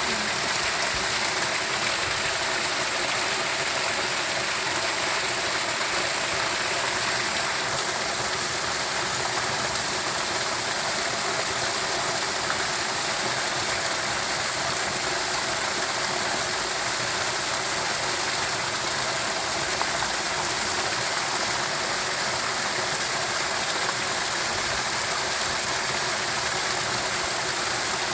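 Rushing water: a steady, even hiss with no breaks.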